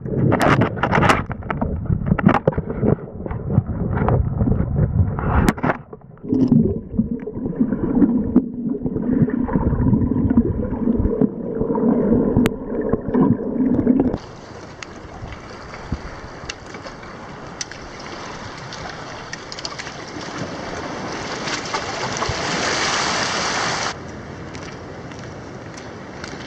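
Water sloshing and gurgling, with rumbling wind on the microphone and several sharp knocks. About halfway through it cuts to a steady, even hiss of water heard through an underwater camera, which drops in level near the end.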